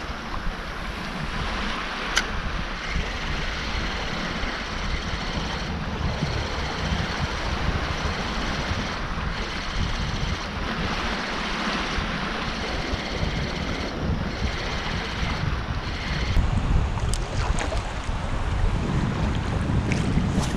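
Wind buffeting the microphone with a steady rumble, over small sea waves lapping and sloshing.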